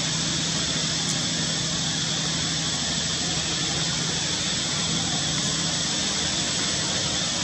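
Steady outdoor background noise: an even hiss with a constant high-pitched drone and a low hum underneath, unchanging throughout, with no distinct calls or knocks.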